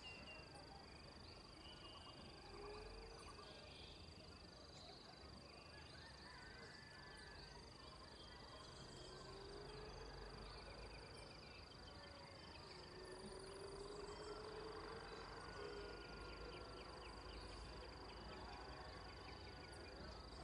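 Faint dawn chorus: many birds chirping and calling at once, with a couple of longer, lower animal calls in the middle and a steady high tone underneath.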